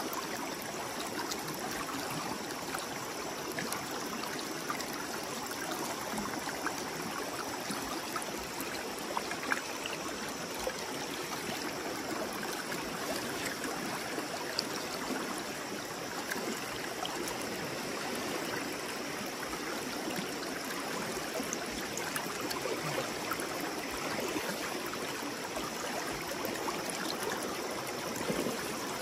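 Stream water running steadily, a continuous rushing flow with faint scattered ticks and splashes.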